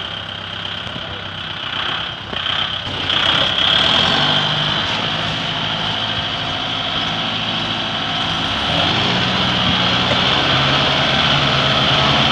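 Kubota MU5502 4WD tractor's diesel engine working hard under load as it pulls on a tow line to free a tractor stuck in deep mud. It gets louder about three seconds in and again near nine seconds.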